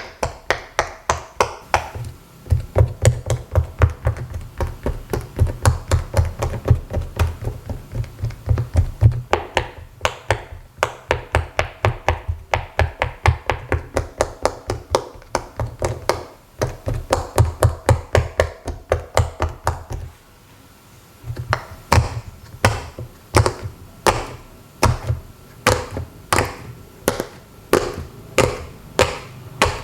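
Silicone pop-it fidget toy bubbles being pressed one after another, giving a rapid run of soft pops, about three to four a second. After a short pause about two-thirds of the way through, the popping resumes a little slower, about two a second.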